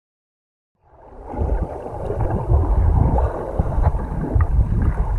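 Muffled, rumbling water noise picked up by a camera held underwater in the sea beside a swimmer, coming in about a second in.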